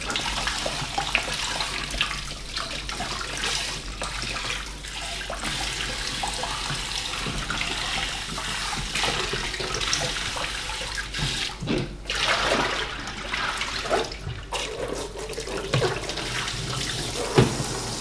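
Kitchen tap running steadily into a plastic basin of water in a stainless-steel sink, with splashing and small knocks as dried fish are rinsed by hand to wash the salt out.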